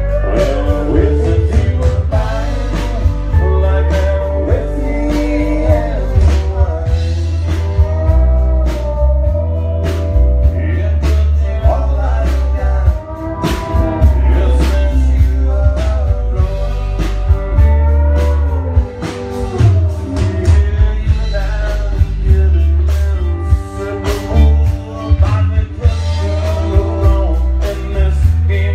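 Live country band playing: a man singing over electric bass guitar, drums and guitar, with a strong bass line throughout.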